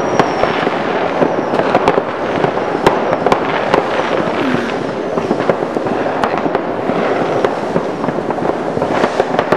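Many fireworks going off at once: a dense, continuous crackling and popping with frequent sharp bangs.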